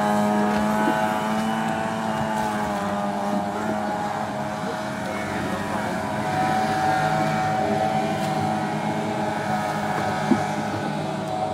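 Outboard motor of a racing river longboat running flat out at a steady high pitch, with a brief sharp tick near the end.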